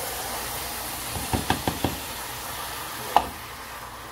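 A wooden spoon stirring a minced-chicken and vegetable filling in a metal pot over a steady sizzle, as the filling cooks off the water the chicken released. The spoon knocks against the pot four or five times in quick succession around the middle, and once more sharply, louder, near the end.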